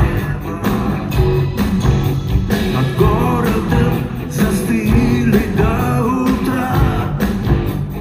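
Live rock band playing: electric guitars over bass and drums with a steady beat.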